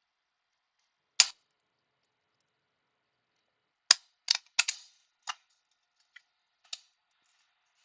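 Sharp clicks and taps of small tools and parts being handled on a repair bench: one click about a second in, then a quick cluster of about six more a few seconds later.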